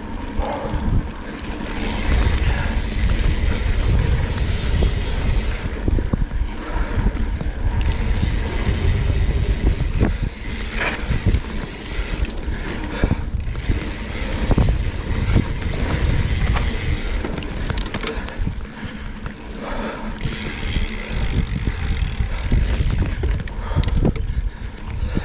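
Wind rumbling on the microphone at speed, with a Cannondale Scalpel-Si full-suspension mountain bike's tyres scraping over loose dirt and the bike clattering and clicking over bumps on a downhill run.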